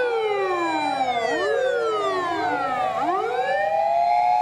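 Several fire engine sirens wailing together out of step. Each one slides slowly down in pitch for about three seconds, then winds back up and holds high near the end.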